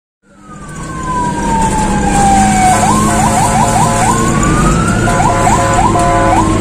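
Fire-rescue vehicle's electronic siren, fading in with one long downward sweep, then switching to a rapid stepped warble of about four beats a second, sweeping up again and warbling once more. Underneath is the steady hum of the vehicle's engine and tyres.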